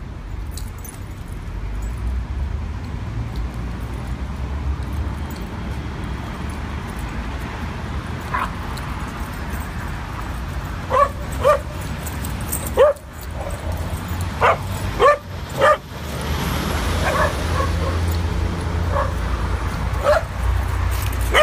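Dogs yipping and barking in play: short, sharp yips come in scattered clusters from about eight seconds in, loudest in the middle, over a steady low rumble.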